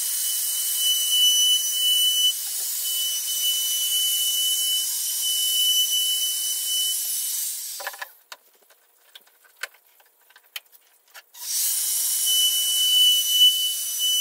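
Handheld router with a 45-degree chamfer bit running at high speed and cutting a chamfer along the edges of a curved wooden header beam: a steady high whine over a loud hiss. It stops about eight seconds in, leaving a few clicks and knocks, and starts again about three seconds later.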